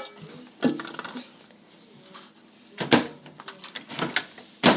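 About four sharp knocks and clicks, the last one loudest, from a microwave oven's door and from things being handled at it.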